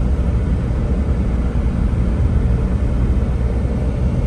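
Car driving along a road: a steady low rumble of engine and tyre noise with no breaks.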